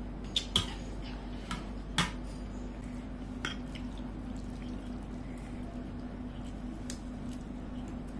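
A spoon and fork clinking against a ceramic bowl of noodle soup while noodles are lifted out: a handful of sharp clinks in the first few seconds, then only faint ticks, over a steady low hum.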